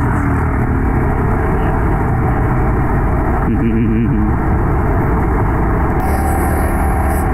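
Steady wind rush on the microphone of a moving Yamaha R15 V3 motorcycle, with the engine running underneath.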